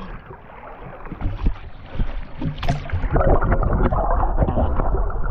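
Water sloshing and splashing at the surface beside a boat hull, with a few knocks. About three seconds in it gives way to a louder, muffled crackling rush as the microphone goes underwater.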